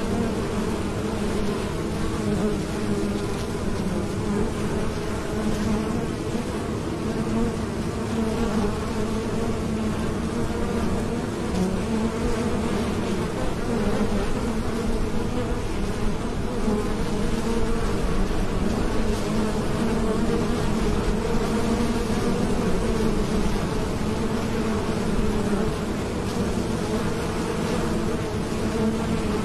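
Many honeybees buzzing as they fly in and out at the entrance of their hive: a steady, dense hum of wingbeats.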